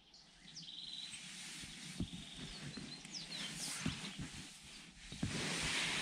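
Birds chirping with short falling calls and a brief trill, over rustling and soft thumps of bedding as someone moves under a blanket. The rustling grows louder near the end.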